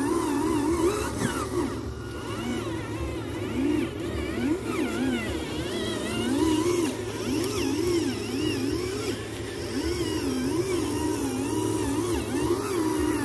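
Small electric motors of radio-controlled construction vehicles whining, the pitch rising and falling continually as the throttle is worked.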